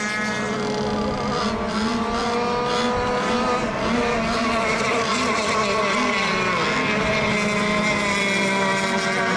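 Radio-controlled racing boat engines running together, a steady buzzing drone of overlapping tones that drift slowly up and down in pitch.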